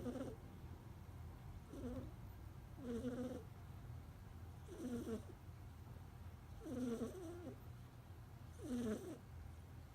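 Sleeping cat snoring: a short pitched snore about every two seconds, five in all, over a low steady hum.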